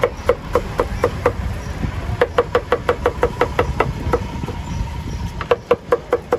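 Kitchen knife chopping red peppers on a wooden cutting board: quick, even knocks, several a second, in runs with short pauses between, over a low steady background rumble.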